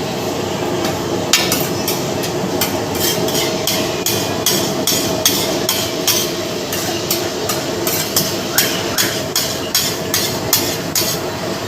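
Metal spatula clanking and scraping on a flat griddle, chopping and mixing egg. There are irregular sharp strikes, a few a second, starting about a second in, over a steady background hum.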